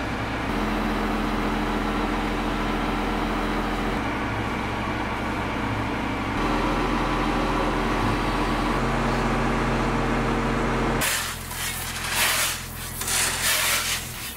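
Truck-mounted crane's engine running as the boom lifts a pallet, its pitch stepping up and down every few seconds. About eleven seconds in it gives way to irregular scraping of gravel being raked and levelled.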